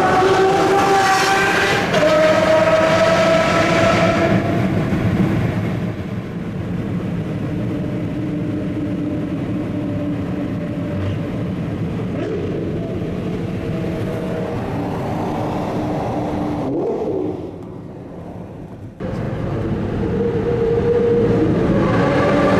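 Lamborghini Murciélago LP640's V12 accelerating in a road tunnel, its pitch climbing over the first few seconds, then running steadier under a constant drone. The sound drops away for a couple of seconds near the end, then rises again.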